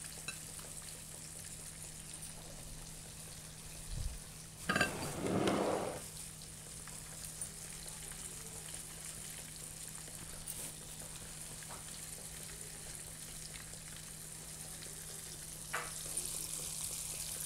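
Breaded fish pieces frying in hot oil, a steady sizzle. About five seconds in there is a brief louder burst of noise.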